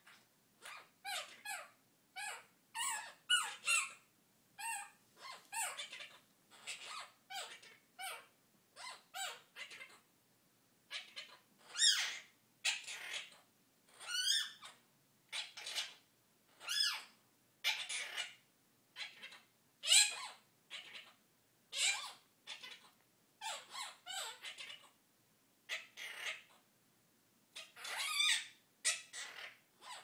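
Quaker parrot calling: a long series of short, squeaky calls, about one or two a second, broken by a couple of brief pauses.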